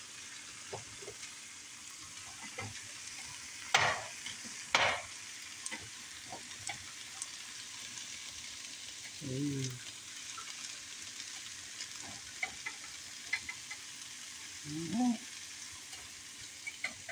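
Broccoli sizzling with a steady hiss in a hot frying pan as the burner is switched off, while it is stirred with silicone-tipped tongs. There are light clicks and two louder clatters against the pan about four and five seconds in.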